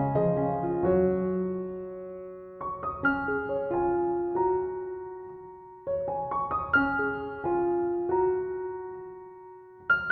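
Background piano music: gentle phrases of a few notes each, every note ringing on and fading.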